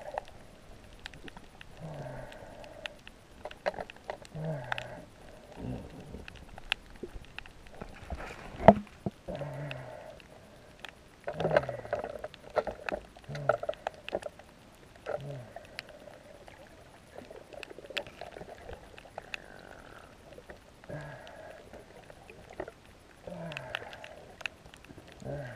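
Muffled sea water sloshing and splashing around an action camera's waterproof housing at the surface, with many small clicks and a short low sound that drops in pitch every second or two. A single sharp knock about a third of the way in is the loudest event.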